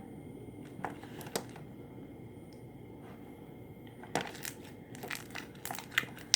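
Hands kneading and mixing sticky homemade slime with freshly added activator, giving scattered small clicks and pops. There are a few early on and many more over the last two seconds.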